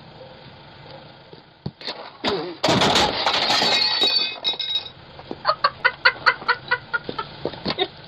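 A person's voice making a run of about a dozen quick, short, pitched bursts, about five a second, after a loud rough noise about three seconds in.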